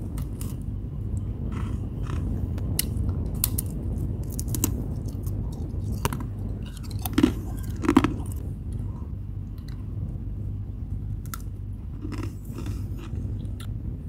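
Soft freezer frost crunching and crackling as it is broken off and crumbled, in many short irregular crackles, with two louder crunches a little past the middle. A steady low hum runs underneath.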